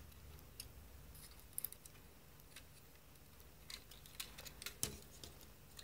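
Faint, scattered clicks and taps of a plastic transforming toy robot's parts being turned and pushed into place by hand, the loudest click near the end.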